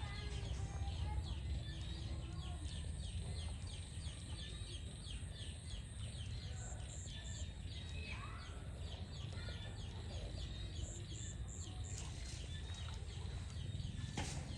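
A caterpillar chewing a leaf: a fast, even run of small crunching ticks, about three to four a second, clearest in the first half. Short high bird chirps come and go over a steady low rumble.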